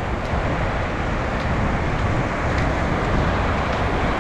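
Wind on the microphone over the sound of surf: a steady rushing noise with a heavy low rumble and no distinct events.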